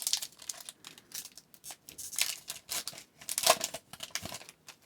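A hockey trading-card pack being crinkled and torn open, in several separate crackly bursts of rustling wrapper, the loudest about three and a half seconds in.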